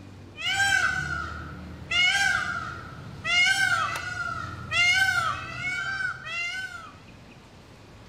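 Indian peafowl calling: five loud bursts about a second and a half apart, each an arching wail that trails off into quieter repeated notes.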